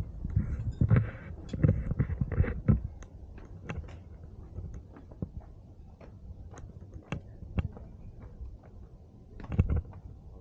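Footsteps on stone paving: irregular sharp clicks, with a run of heavy low thumps in the first few seconds and another short run near the end.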